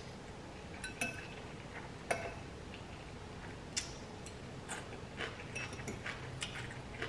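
Metal fork clinking and tapping against a glass bowl while noodles are picked up and twirled, a handful of separate sharp clinks spread a second or so apart.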